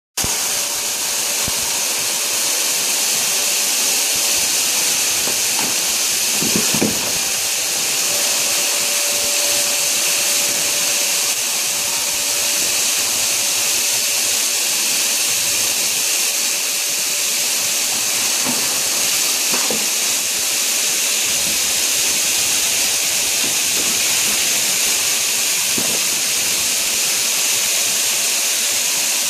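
Garden hose spraying a steady jet of water into a plastic kiddie pool, a constant hiss.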